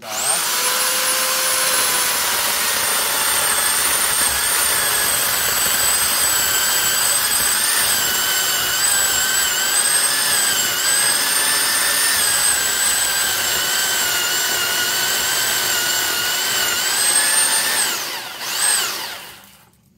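Small corded electric chainsaw starting up and cutting through a thick log, its motor whine sagging and wavering in pitch under load. Near the end the pitch rises as the chain runs free, then the motor is switched off and winds down to a stop.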